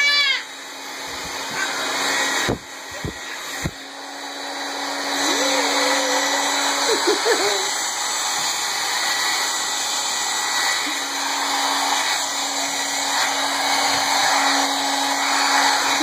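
Hand-held hair dryer running, a steady rush of blown air with a motor hum, dropping off briefly with a few knocks about three seconds in. A toddler shrieks and squeals with laughter over it at the start, midway and near the end.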